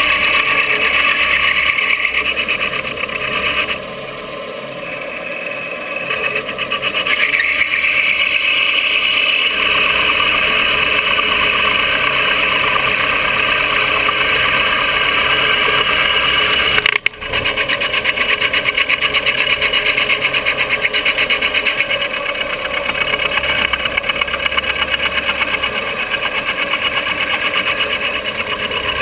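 Milling machine running, its end mill cutting the trigger pocket of an 80% AR-15 lower receiver: a steady machine whine with cutting noise. It eases off a few seconds in and breaks off for a moment about halfway through before going on.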